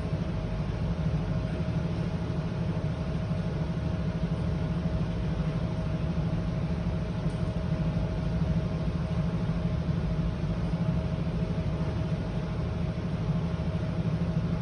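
Diesel generator engine running steadily at a constant speed, a low, even drone with a faint steady hum above it.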